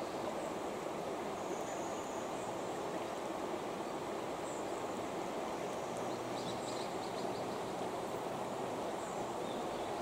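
Steady rushing of a shallow river flowing over stones, with faint short high chirps now and then.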